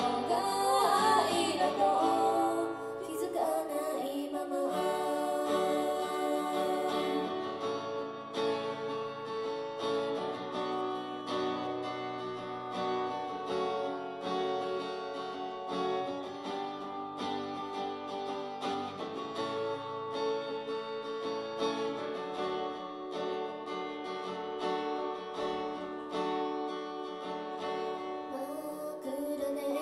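Live acoustic guitar strumming chords with a female voice singing a ballad, the voice strongest in the first few seconds.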